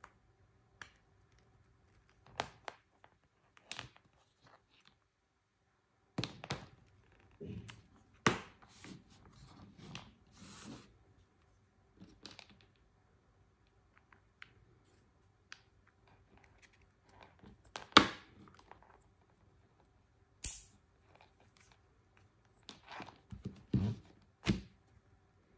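Scattered handling noises of a small plastic device and its cables: clicks as a connector is plugged in, knocks and rubs as the unit and cords are moved and set down on a table, the sharpest knock about two-thirds of the way through. A faint steady hum lies underneath.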